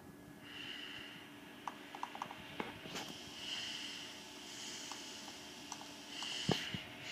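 Scattered light clicks of laptop keys and touchpad buttons being pressed, a small cluster a couple of seconds in and one sharper knock near the end, over a soft hiss that swells and fades every few seconds.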